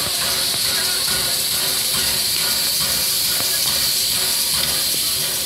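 Norfolk & Western J-class No. 611 steam locomotive moving slowly, with a loud, steady hiss of steam venting from its open cylinder cocks.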